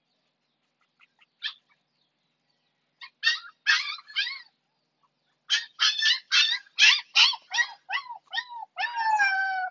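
Husky puppy yelping and crying while being given a vaccine injection: a few faint cries about a second in, then a rapid run of short, high-pitched yelps, ending in a longer drawn-out cry.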